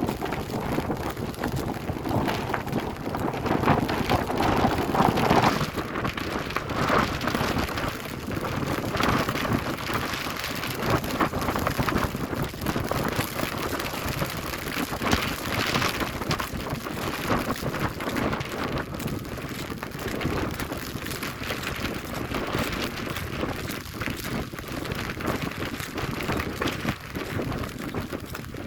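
Steady rain falling, a dense patter of drops crackling on nearby surfaces.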